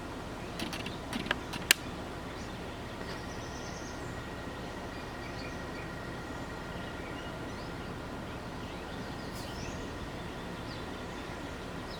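Small birds chirping now and then over a steady outdoor background hum, typical of distant traffic. A few sharp clicks come in the first two seconds, the loudest about 1.7 s in.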